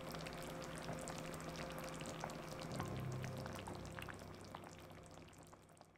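Tomato hot pot simmering in a cast iron pot: small, irregular bubbling pops over a low steady hum, fading out over the last two seconds.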